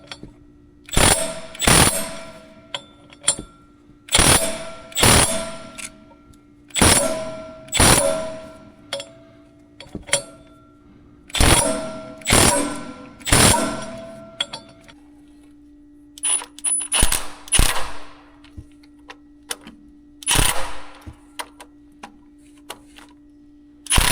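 Metal clanking: hard strikes on steel, mostly in pairs every few seconds, each ringing briefly. A steady hum comes in about fifteen seconds in.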